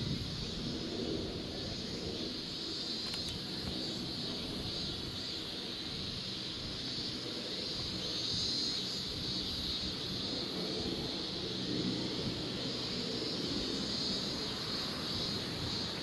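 Steady high-pitched insect chorus swelling a little now and then, over wind rumbling on the microphone.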